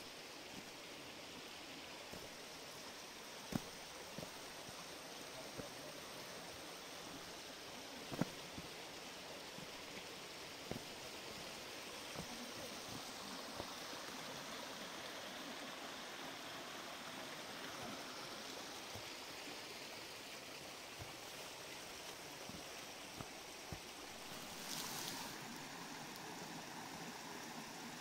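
Steady rush of a mountain stream, with a few scattered sharp clicks, the loudest about three and a half and eight seconds in.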